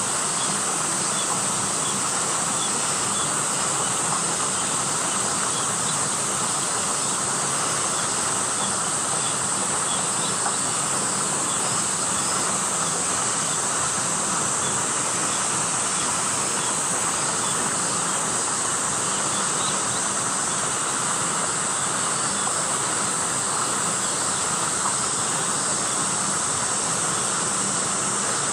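Steady, unbroken chorus of summer cicadas shrilling, with a high hissing band over a lower buzz.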